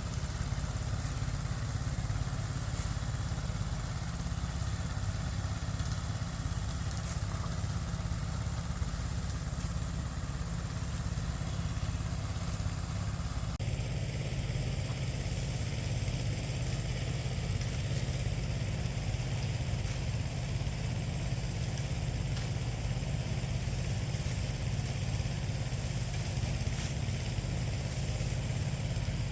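Steady low rumble of a running engine, unchanging throughout, with an abrupt shift in the higher background sound about thirteen seconds in.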